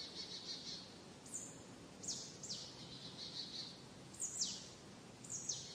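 Songbirds in a forest giving short, high chirps, about seven in all, each falling quickly in pitch, over a faint background hiss. A soft pulsing high trill fades out at the start.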